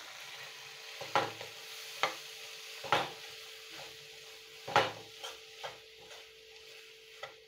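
Steel spoon stirring boiled peas and fenugreek leaves into thick masala in a nonstick kadai, with a faint sizzle under it. The spoon knocks and scrapes against the pan about once a second, loudest near the middle.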